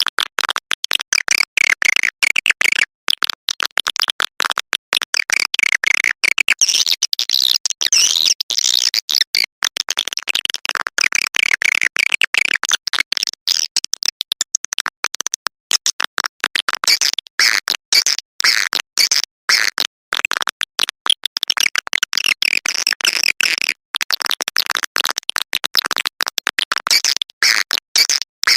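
Swiftlet lure call: a dense stream of rapid, high chirps and twitters of swiftlets, chopped into many very short bursts each second. It is the kind of calling sound played from swiftlet houses to draw the birds in to roost and nest.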